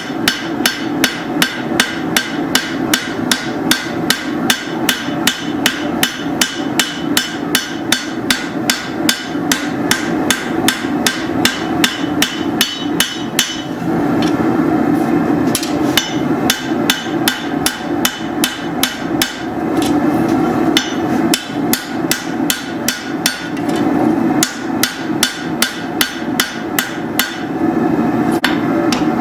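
Forging hammer striking a hot steel machete blank on the anvil in a fast, even rhythm of about three to four blows a second, thinning and shaping the spine and bevel. The blows stop briefly about four times, leaving a steady low rushing noise that runs underneath throughout.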